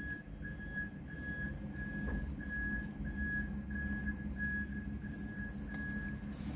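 Electronic beeping, a short high beep about three times a second, over a steady low hum. The beeping stops near the end.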